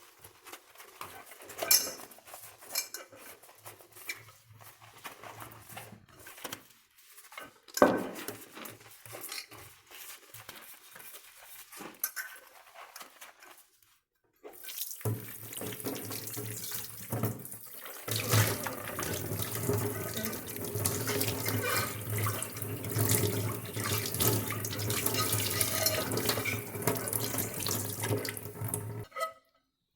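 Scattered light knocks and clinks of things being handled, then a kitchen tap running into a sink from about halfway through, with a brief break, cut off shortly before the end.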